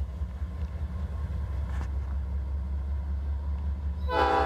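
Low, steady rumble of an approaching CN freight train's diesel locomotives; about four seconds in, the lead locomotive's air horn starts sounding, a loud chord of several notes at once, as it nears the level crossing.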